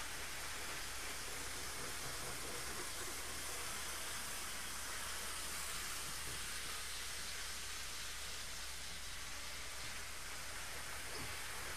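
OO gauge model InterCity APT-P train running fast around the layout, giving a steady whirring hiss from its motor and wheels on the rails, with a constant low hum underneath.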